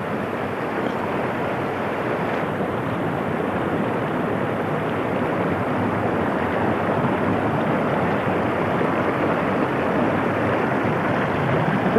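Shallow rocky river rushing, a steady, even rush of water that grows slightly louder toward the end.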